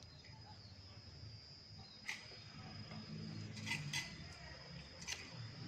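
Faint handling noise: a few soft clicks, over a steady thin high-pitched whine.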